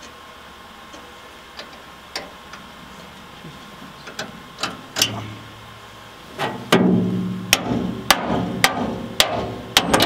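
Hammer blows on steel on a rusty forage-harvester frame as a pin is driven out: a few light metallic clicks at first, then from about seven seconds in a run of loud, sharp strikes about two a second, with the metal ringing briefly after each.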